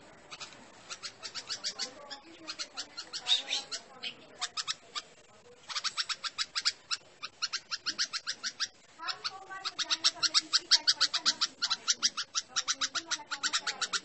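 Red-vented bulbul giving a rapid chatter of sharp alarm notes, about seven a second, in long runs with short breaks. This is a bulbul's alarm at a cat.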